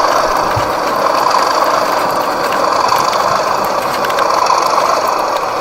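O gauge model train running on its track: a steady mechanical clatter and motor drone.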